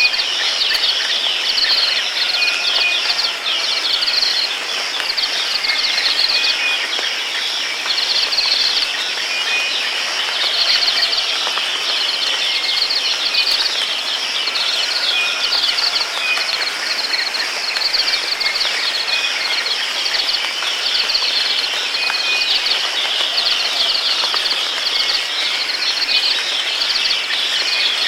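Steady hiss of falling rain with short bird chirps over it.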